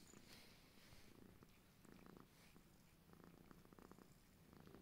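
Faint, steady purring of a Scottish Fold cat as it is licked and groomed by another cat.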